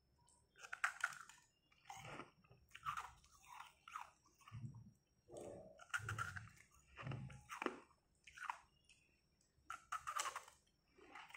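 Bites into a block of carbonated ice and chewing of the crushed pieces: irregular crisp crunches about once a second, with deeper chewing sounds in between.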